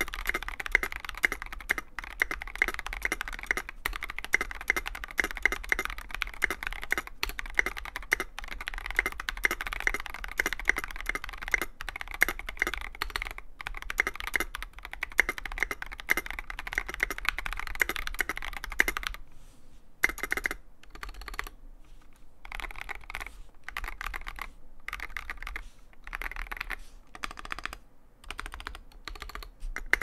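Fast typing on a Space65 CyberVoyager mechanical keyboard with lubed Zealio v2 tactile switches, a carbon fibre plate and SA-profile keycaps: a dense, continuous run of keystroke clacks that thins to short, scattered bursts about two-thirds of the way through. The spacebar, on a Holy Panda switch, has a rattle the owner can't get rid of.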